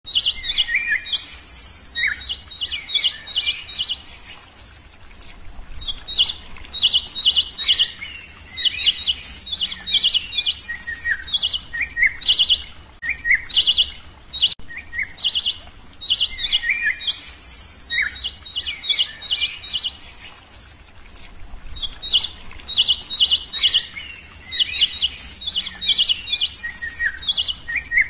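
Songbirds chirping in quick runs of high notes, mixed with short slurred whistles, with two brief lulls.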